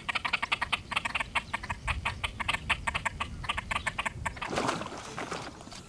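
Great crested grebes calling during courtship: a fast, even series of short clucking notes, about five a second. About four and a half seconds in, the notes give way to a brief harsh noise.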